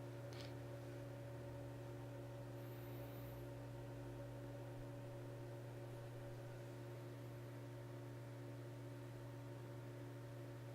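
Steady low electrical hum made of several constant tones, unchanging throughout.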